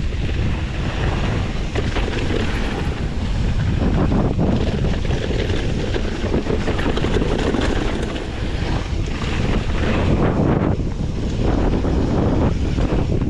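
Wind buffeting the microphone of a moving camera, over a continuous low rumble with scattered small rattles and knocks.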